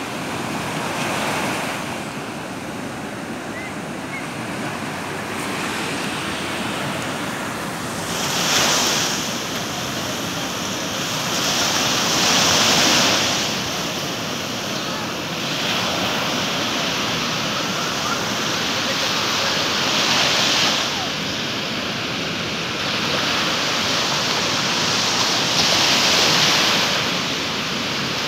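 Ocean surf: small waves breaking and washing up the shore as a constant rushing noise, with a louder hissing swell as each breaker comes in, several times over.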